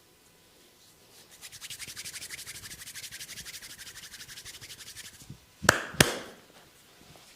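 Fingers rapidly scratching and rubbing the hair and scalp in an even rasp of about nine strokes a second during a head massage. This is followed by two sharp smacks about a third of a second apart.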